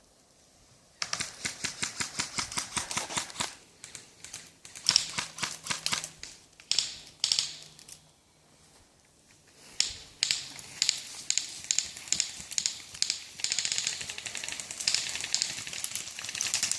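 Airsoft guns firing in fast full-auto strings: rapid clacking shots in several bursts with short pauses between them.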